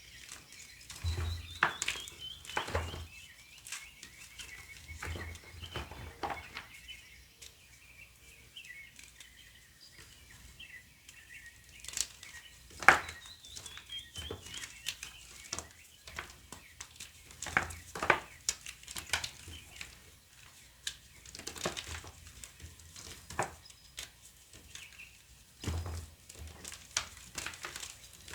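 Gym chalk crushed and crumbled by hand: dry, crackling crunches with a few heavier thumps. Small birds chirp behind it, twice running down a quick falling series of notes.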